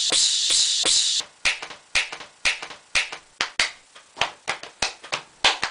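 A loud hiss for about a second that cuts off sharply, then a string of sharp taps or claps, roughly two a second and slightly uneven.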